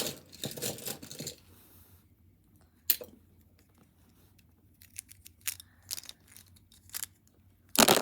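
Broken plastic pieces of a GAN speedcube being handled: scattered small clicks and rustles, with a sharp click about three seconds in, a few light clicks a little later, and a louder rustle at the end.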